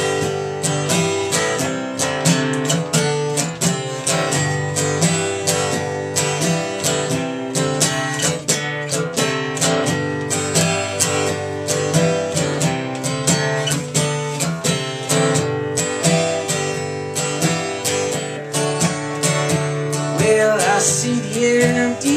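Acoustic guitar strummed in a steady rhythm of chords, an instrumental break between sung verses.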